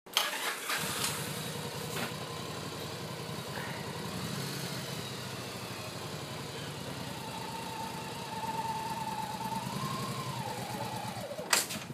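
Cruiser motorcycle engine idling steadily, with one sharp knock near the end.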